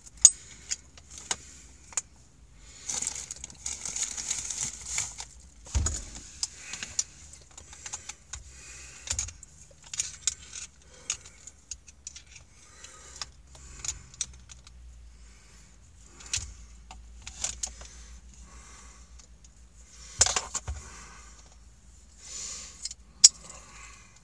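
Metal screwdrivers clinking and rattling as they are handled, with irregular sharp clicks and a few louder knocks.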